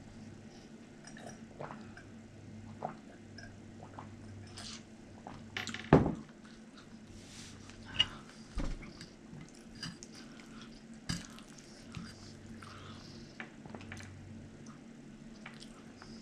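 Eating at the table: a fork clinking and scraping on a plate, with chewing and scattered knocks, the loudest about six seconds in.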